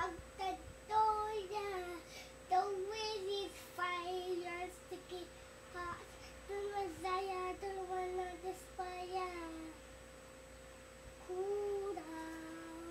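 A young boy singing unaccompanied, holding long wavering notes in several phrases, with a short pause about ten seconds in before a final held phrase.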